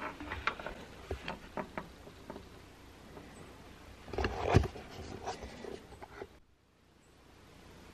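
Light metal clinks and knocks from a steel camp pot with a wire bail handle being handled and tipped over a metal cup on a plastic truck bed liner, with a louder clunk about four and a half seconds in. The sound drops away suddenly a little after six seconds.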